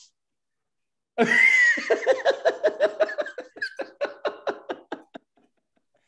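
A man bursting into loud laughter about a second in: a quick run of ha-ha pulses, about five a second, that fades away.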